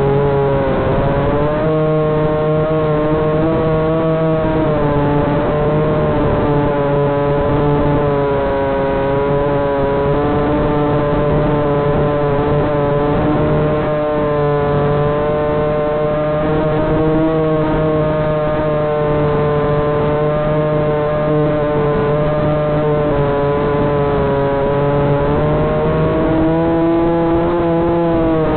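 Electric motor whine of a Walkera Hifa RC aircraft, picked up by its onboard camera: a steady whine whose pitch drifts a little up and down with the throttle, over a rushing noise, rising slightly near the end.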